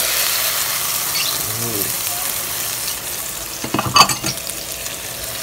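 Shredded chicken sizzling in hot oil as it lands on sautéed garlic and onion in a pot, a steady frying hiss. A short clatter about four seconds in.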